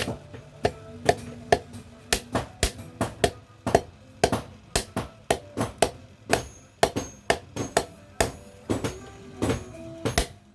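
Blacksmith's hammer striking steel on an anvil while forging tongs: sharp ringing blows, about two a second and uneven in loudness.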